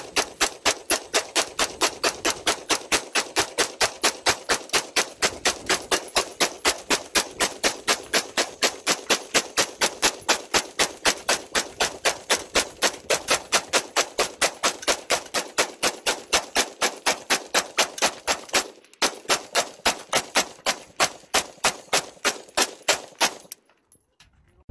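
AR-15 rifle fed from a 100-round drum magazine firing a long string of rapid semi-automatic shots, about four a second, with one short break about 19 seconds in. The shooting stops about a second before the end.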